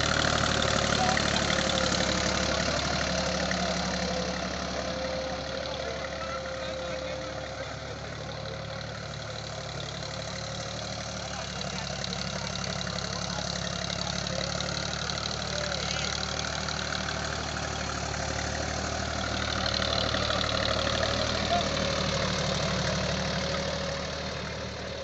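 Deutz-Fahr Agrolux 45 4WD tractor's diesel engine running steadily under load as it pulls a tine cultivator through the soil, louder near the start and again about 20 seconds in.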